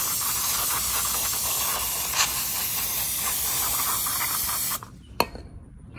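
Aerosol can of cleaner spraying in one long continuous hissing blast, stopping suddenly almost five seconds in, followed by a single sharp click.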